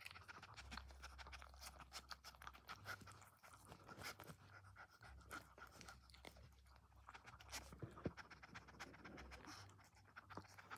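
Faint, irregular wet clicks and chewing of a mother dog licking and nibbling at her newborn puppy and its umbilical cord.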